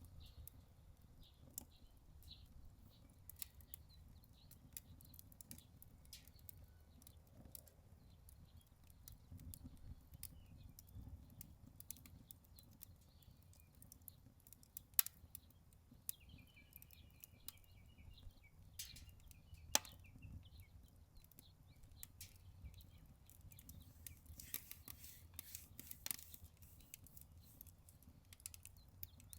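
Wood fire crackling in a Solo Stove Ranger fire pit: scattered sharp ticks and pops, two of them louder a little past halfway, over a low wind rumble. A bird chirps in a quick run partway through.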